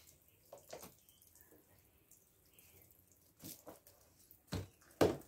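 Sponge dipped in a bucket of soapy water and wiped over a car's wet bonnet: a few short splashes and drips, the loudest near the end.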